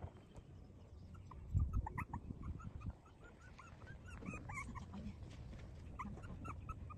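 Young puppy whimpering in many short, high-pitched squeaks that come in quick runs. Low rumbling thumps sound about one and a half to three seconds in.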